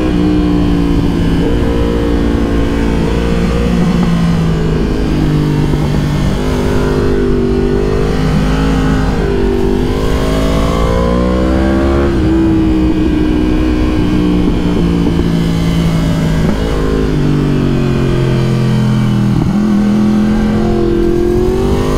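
Yamaha R1 inline-four sport bike engine running under way, its note rising and falling as the throttle opens and closes through the bends, with several sudden steps in pitch from gear changes.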